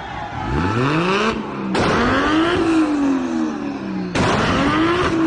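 Toyota Supra engine revving: its pitch climbs, peaks and sinks again about three times, with abrupt breaks between the revs.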